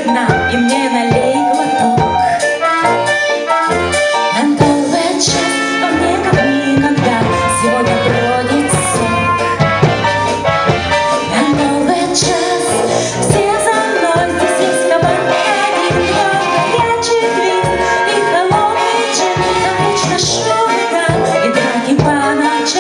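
A woman sings a song into a microphone over instrumental accompaniment with a steady beat.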